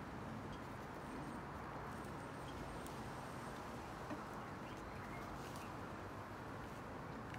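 Outdoor garden ambience: a steady low background rush with faint bird calls and a few light ticks.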